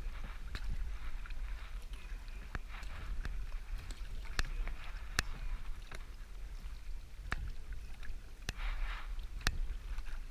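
Canoe paddling: the paddle blade swishes through the water every few seconds, with several sharp knocks of the paddle against the canoe. A steady low rumble runs underneath.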